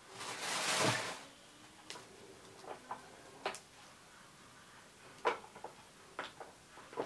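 Paper-crafting supplies being handled: a short paper rustle at the start, then scattered light clicks and taps.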